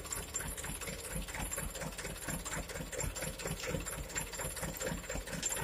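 Mitsubishi Canter dump truck's diesel engine idling steadily with a regular, even pulse.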